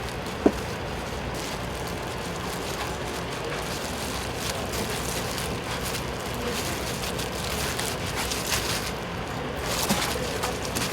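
Steady hiss of a street food stall's cooking and surroundings, with one sharp clink about half a second in.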